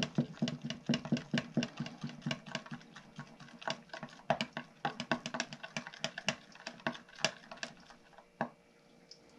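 A stir stick clicking and scraping against the sides of a cup while stirring liquid soft plastic (plastisol). The clicking is rapid and irregular, several strokes a second, and dies away near the end.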